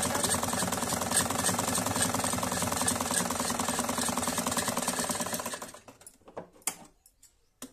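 Sewing machine running at a steady fast rhythm as it stitches the hem of a kurta sleeve, then stopping about five and a half seconds in. A few light clicks follow near the end.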